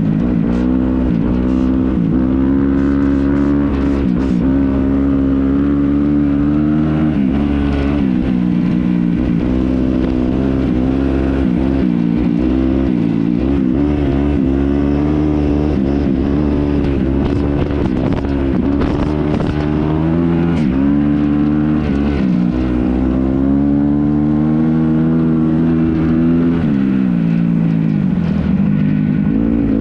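Dirt bike engine being ridden on a trail, its revs climbing and dropping over and over as the rider works the throttle and gears.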